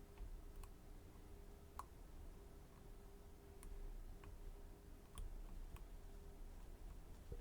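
Faint, scattered clicks of lock-picking tools working the pins of a Mul-T-Lock Garrison lock, about seven light ticks at irregular intervals, over a faint steady hum.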